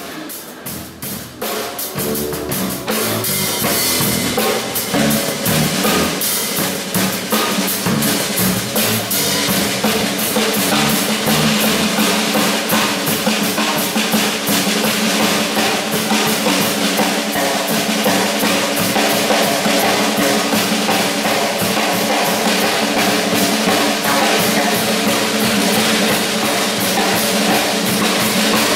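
Drum kit played in a fast, dense drum solo. It grows louder over the first few seconds, then carries on as a steady, unbroken stream of strokes.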